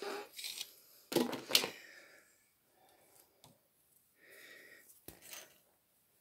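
Knitted fabric and the cast-on comb being handled and pulled off a knitting machine's needle bed: scattered rustles and scrapes, with a sharp click about five seconds in.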